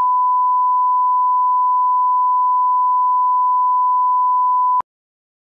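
Steady 1 kHz reference test tone, a pure beep at one constant pitch and level, played with SMPTE colour bars as a line-up signal; it cuts off suddenly near the end.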